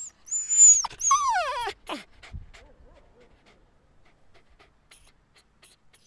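Puppy whimpering: a high, thin squeal, then a whine that slides down in pitch about a second in, followed by a few faint ticks and snuffles.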